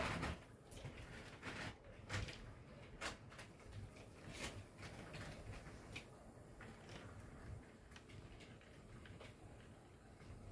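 HO scale model freight train rolling past, a faint low rumble with irregular clicks from the wheels on the track, several sharper ones in the first half.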